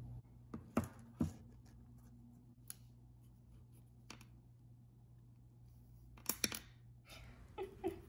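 A few scattered soft clicks and taps of hands handling small objects on a tabletop, over a faint steady hum.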